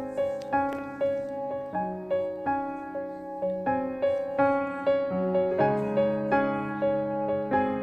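Background music: a gentle keyboard tune, notes struck at a steady, even pace and left to fade.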